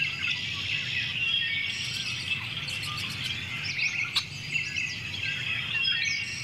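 Many small birds chirping and calling at once: a dense chorus of short chirps and quick rising and falling whistles, with one sharp click about four seconds in.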